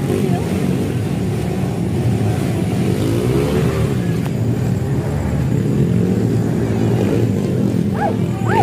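Motorcycle engines running and revving in bursts, with a crowd's voices mixed in.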